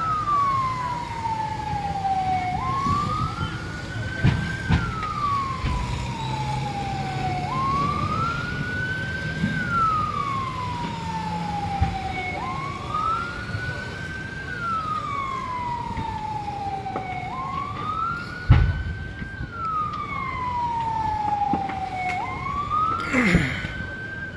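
A siren wailing in a slow repeating cycle. About every five seconds it rises, holds briefly, then slides down before jumping back up. A few sharp bangs cut through over a low steady rumble, the loudest about three-quarters of the way in.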